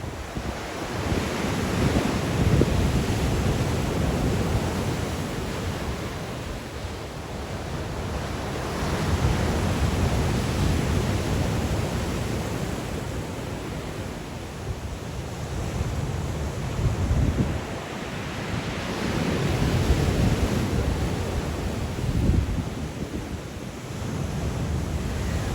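Black Sea waves breaking and washing ashore in a strong wind, the surf swelling and falling back every few seconds, with wind buffeting the microphone.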